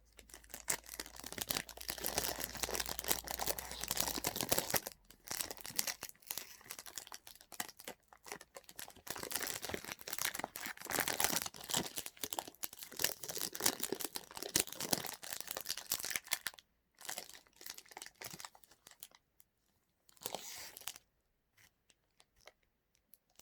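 Snack packaging being torn open and crinkled: dense, continuous crackling for most of the stretch, breaking into short bursts near the end.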